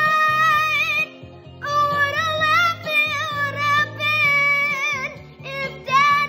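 A boy singing wordless high notes: one long held note, a brief break about a second in, then a run of wavering, sliding notes with vibrato, and a loud note near the end.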